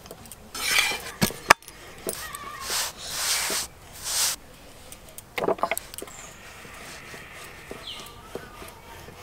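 Thin roti being handled on a hot tawa: a few short bursts of soft rustling and scraping as the bread is pressed and lifted, with a couple of sharp light clicks.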